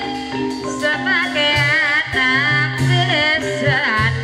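Javanese gamelan music for an ebeg dance: struck metallophones ringing over a steady drum pulse, with a singer's voice carrying a strongly wavering, ornamented melody from about a second in.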